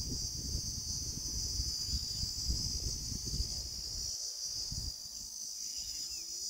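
Insects droning steadily at a high pitch, over a low irregular rumble on the microphone.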